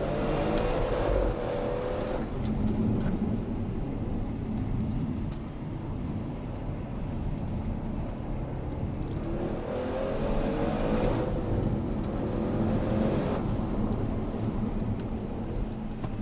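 Audi RS6 C7 Performance's twin-turbo 4.0 V8, heard from inside the cabin on track. The revs climb hard just as it starts, ease off for several seconds, then climb again in a second hard pull from about nine seconds in before the driver lifts off.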